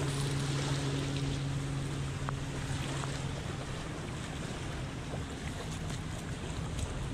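Wind on the microphone and small waves lapping at the shoreline, a steady rushing noise, with a low steady hum that stops about three seconds in.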